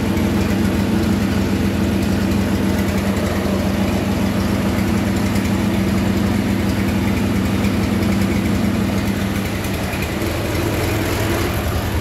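John Deere 1520 tractor engine idling steadily at close range.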